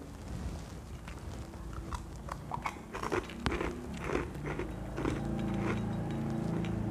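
Close chewing and mouth smacking of someone eating, with small clicks and taps from fingers working food on a plate. About five seconds in, a steady low hum sets in under the eating sounds.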